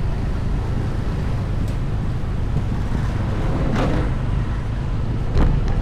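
Wind rushing over the microphone with the low rumble of street traffic, recorded on the move through city streets. There is a brief hissing swell about four seconds in, and a sharp knock near the end that is the loudest sound.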